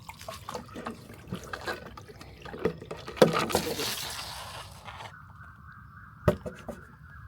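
Water poured from a jar down a small crab-release slide into the swamp, trickling and splashing with scattered clicks, loudest about three seconds in. After about five seconds a steady high tone sets in, with one sharp knock near the end.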